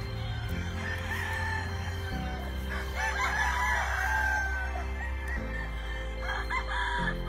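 Gamefowl roosters crowing and clucking, with the busiest crowing about three to four seconds in, over background music of slow held chords.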